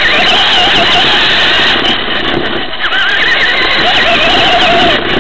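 Traxxas Slash RC truck driving on a dirt track, heard from a camera mounted on the truck: a whine that rises and falls with the throttle over loud wind and rumble on the microphone.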